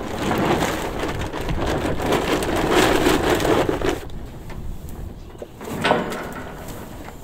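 Horse feed pattering out of a bag into a metal feeder, a dense rain-like patter that stops about four seconds in. A single short burst of noise follows about six seconds in.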